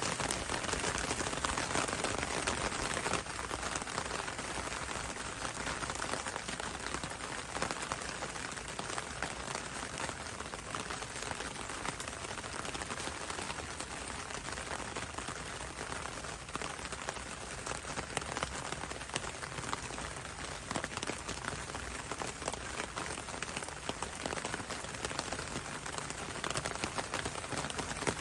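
Steady rain with dense pattering of raindrops falling on leaves.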